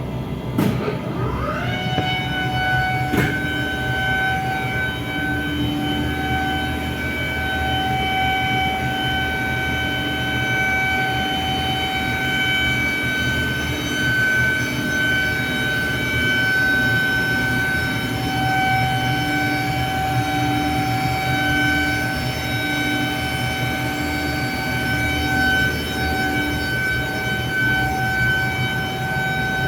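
Carrier chiller running: a high-pitched whine climbs in pitch over the first two seconds, then holds steady over a low machine hum, with a sharp click about three seconds in.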